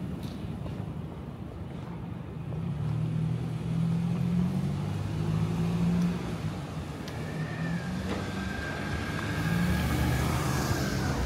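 A road vehicle's engine running and accelerating close by, its pitch rising and falling. A thin steady whine joins about seven seconds in, and a hiss swells near the end.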